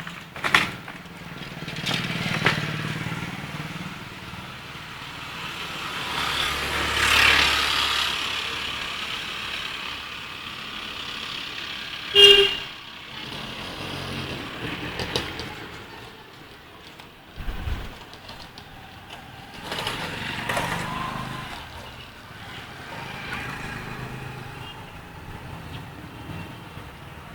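Street traffic: vehicles pass by several times, each swelling and fading away. A short, sharp, loud sound cuts in about twelve seconds in.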